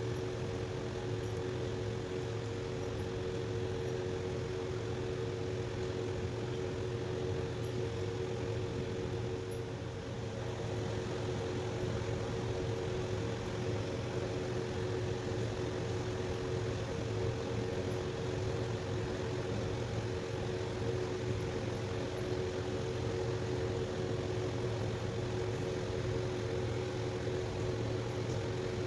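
A steady mechanical hum that does not change, with a couple of constant tones over a low drone.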